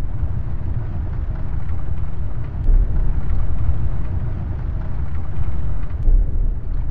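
Cinematic logo-sting sound design: a deep, steady rumble with a heavy low hit about two and a half seconds in and another near the end.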